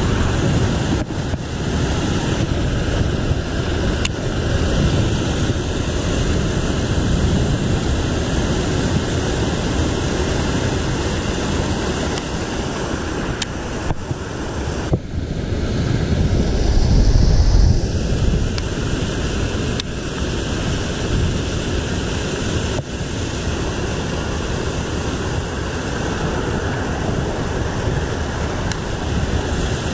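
Water pouring over a concrete spillway and churning into foam below, a steady rush that grows louder and deeper for a few seconds around the middle.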